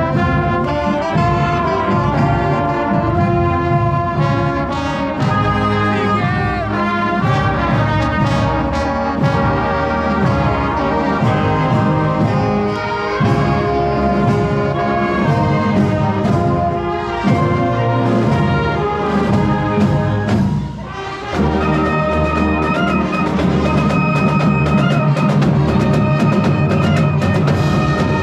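Brass band music: trumpets and trombones playing, with a strong low brass part. About two-thirds of the way through the music drops briefly, then comes back in on long held chords.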